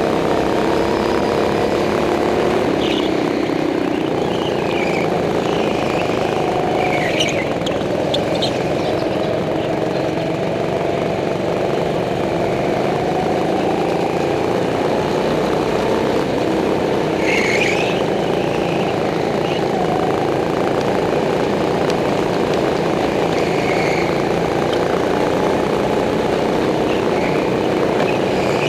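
Go-kart engine running under the driver, its pitch rising and falling as the throttle opens and closes through the corners. A few brief high squeals come through at intervals.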